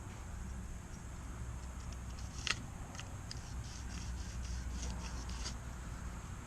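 Light clicks and scrapes of hand tools on a steel bar as a square cut line is marked, with one sharper click about two and a half seconds in, over a steady low hum.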